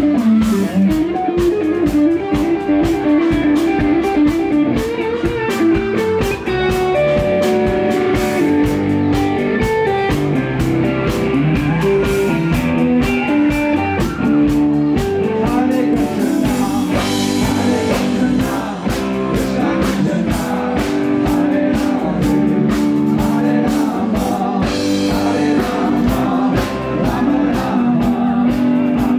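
Live band playing: electric guitar over keyboards and a drum kit with a steady beat.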